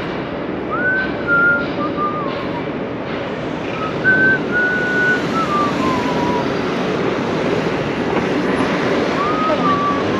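A person whistling a slow tune in three short phrases, each a held note that steps down, over steady city street noise.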